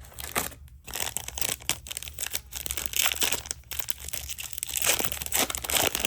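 Plastic cellophane wrapper of a trading-card pack crinkling and crackling as it is handled and torn open, in an irregular run of crackles.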